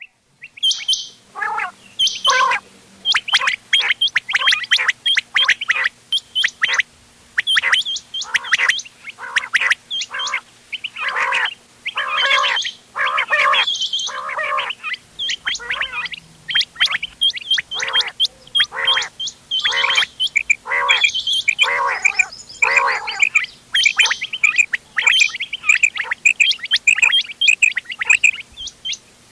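Quails calling over and over: a mix of short, sharp calls from several birds in quick succession, the kind of calling played to lure quail for hunting.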